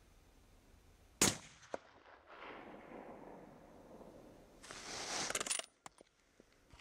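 A single suppressed rifle shot from a Blaser rifle with an ATEC silencer about a second in, a sharp crack followed by a fading echo; it is a zeroing shot after the scope was remounted. About four seconds later there is a second of loud rustling with a few clicks.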